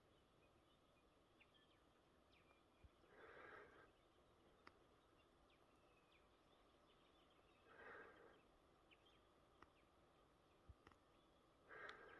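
Quiet bush with a person's soft breaths, three in all, about every four seconds, and faint bird chirps between them.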